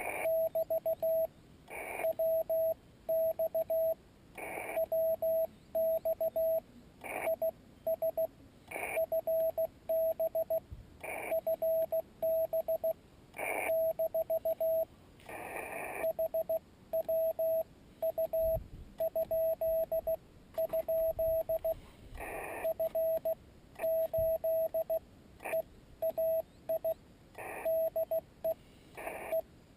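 Morse code (CW) on a Yaesu FT-817ND HF transceiver: a single steady beep keyed on and off in quick dots and dashes, with short bursts of hiss between some of the groups.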